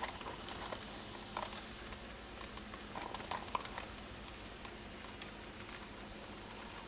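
Faint kitchen handling sounds: scattered light taps and rustles as a plastic tub of grated Parmesan is picked up and tipped over a pot of drained pasta, over a faint steady hum.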